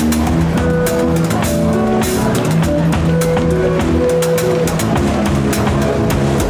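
Live band playing: a drum kit with cymbals and bass drum keeping a steady beat under guitar and bass guitar lines.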